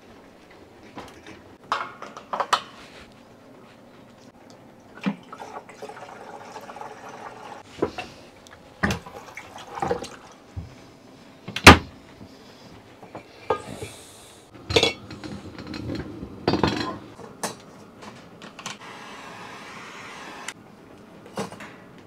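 Kitchen clatter: plates and plastic food containers being handled and set down, a scattered series of sharp knocks and clicks. The loudest knock comes about halfway through.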